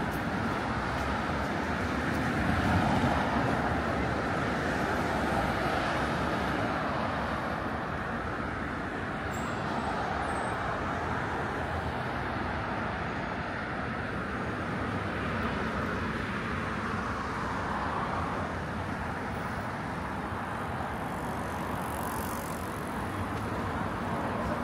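Road traffic of a city street: a steady rush of cars passing, swelling a little as vehicles go by.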